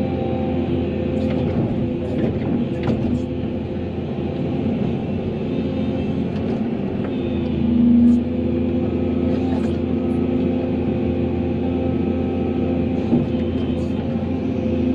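Volvo excavator's diesel engine running steadily while the bucket digs soil, with the hydraulics working; a louder note swells briefly about eight seconds in, and a few short knocks and clicks come from the bucket in the dirt.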